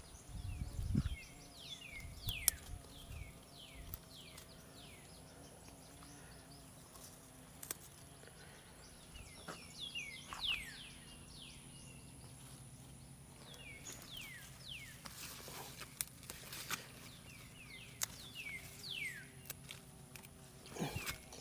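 Birds chirping outdoors, a string of short, quick downward-sliding chirps repeated throughout, with occasional faint clicks and rustles.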